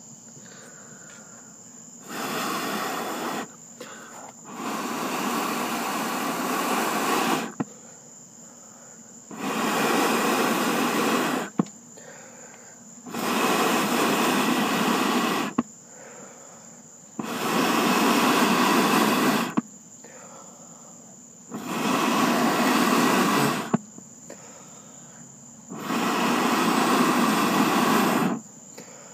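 Air blown in repeated gusts onto glowing charcoal to fan it into flame: seven blasts of about two to three seconds each at a steady rhythm, with short pauses between.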